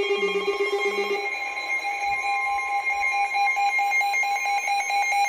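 Weather radio receivers sounding their electronic warning alarms: rapid beeping at several pitches at once. About a second in, one alarm stops and a single rapidly pulsing tone carries on, with a fainter steady tone joining it. This is the alert that comes before a newly issued warning is read.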